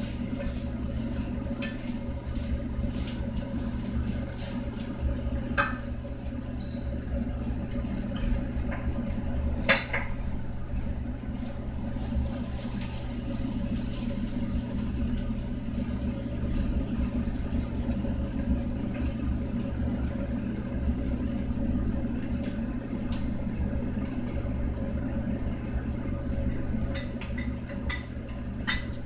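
Stir-fried pork and onions sizzling in a frying pan while a wooden spatula stirs and scrapes through them, with a few knocks of the spatula against the pan, over a steady low hum.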